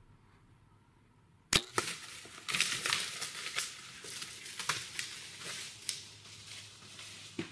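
A bow shot about one and a half seconds in: a single sharp snap as the arrow is loosed and strikes a whitetail buck. The deer then crashes away through dry leaves in a run of rustling and crackling that thins out.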